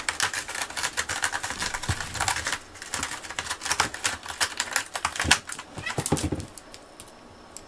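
Cat scratching a corrugated-cardboard scratching post with its front claws: a rapid, dry rasping run of scratches that stops about six and a half seconds in.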